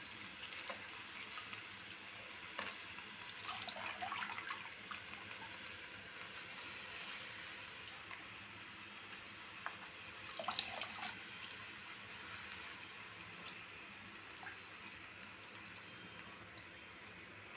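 Faint steady hissing sizzle of fenugreek leaves cooking in an aluminium kadhai over a gas burner, with brief louder rustles about four seconds in and again around ten seconds.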